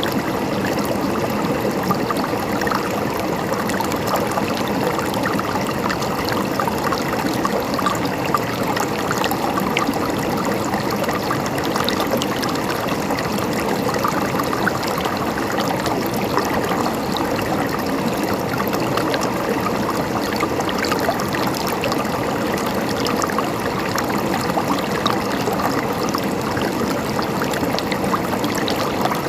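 River water flowing and gurgling over stones, a steady babbling rush.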